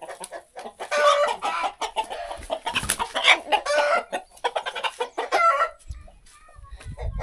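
Rooster giving a rapid series of harsh calls as it is caught by hand from a bamboo basket. The calls stop about six seconds in.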